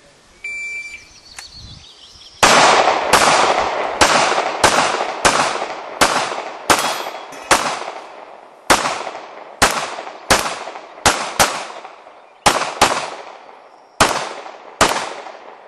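A shot timer's beep about half a second in, then about twenty gunshots from a competitor shooting an IPSC stage. The shots come in quick strings with short pauses between them, each with a short echo.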